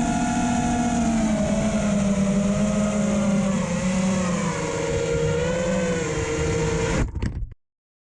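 A 5-inch FPV racing quadcopter's brushless motors and three-blade props whining steadily, the pitch wavering up and down with the throttle. The sound cuts off suddenly about seven seconds in.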